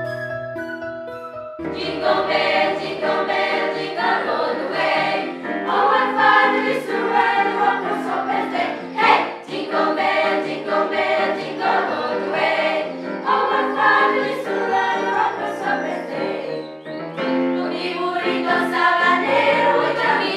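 Children's choir singing a Christmas carol in Spanish with instrumental accompaniment. The singing comes in suddenly about a second and a half in, after a few held instrumental notes.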